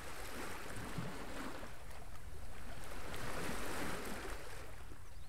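Small waves lapping at a shoreline: a steady wash of water that swells and eases.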